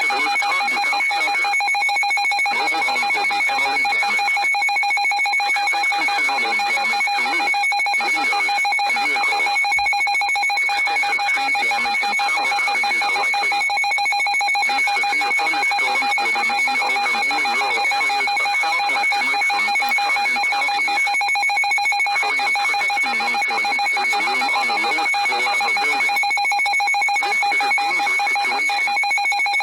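Emergency Alert System attention tone on a weather-radio warning broadcast: a steady alarm tone held without a break, over a fainter, shifting sound underneath.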